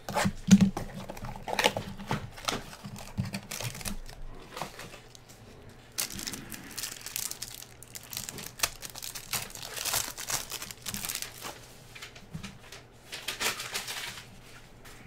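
A trading-card pack's foil wrapper being torn open and crinkled by hand, in several bursts, as the cards are worked out of it. A few knocks and rustles in the first few seconds as the pack is drawn out of its cardboard box.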